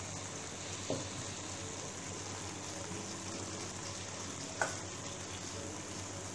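Marinated chicken sizzling in onion-tomato masala in a metal pan, with two short knocks, a small one about a second in and a louder one past the middle.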